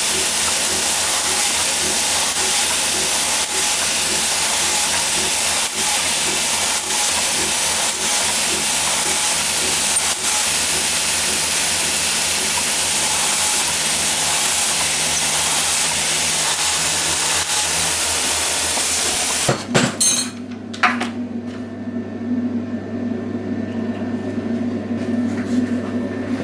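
Loud steady machine hiss with a faint rhythmic pulse underneath. It cuts out abruptly near the end with a few clicks and knocks, leaving a quieter low steady hum.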